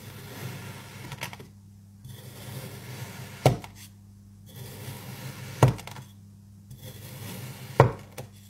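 Kinetic sand being sliced with a long plastic cutter: soft grainy crunching as the blade presses down through the sand, each cut ending in a sharp tap as it meets the surface below, three times about two seconds apart.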